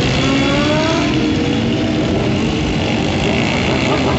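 A large group of motorcycles riding past with many engines running at once; several rev up in rising pitch in the first second or so.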